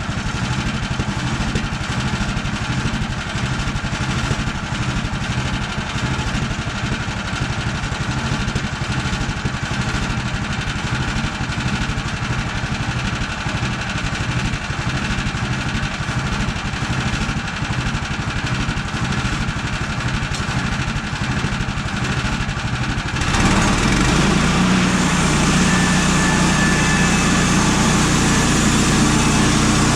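Gas engine running steadily; about 23 seconds in it gets louder, with a stronger low, even hum.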